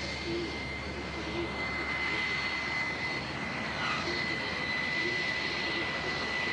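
Su-27 jet fighter's twin turbofan engines running during a low-speed display pass: a steady rushing roar with a high whine that slowly sinks a little in pitch.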